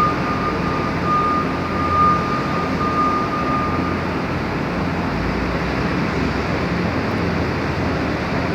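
Hydraulic hose crimper switched on, its power unit running with a steady hum. A high electronic beep repeats about once a second and stops about four seconds in.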